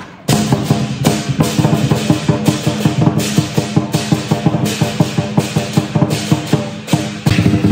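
Chinese lion dance drum beating a fast, driving rhythm with clashing cymbals. The sound cuts in just after a brief gap at the start and dips for a moment near the end.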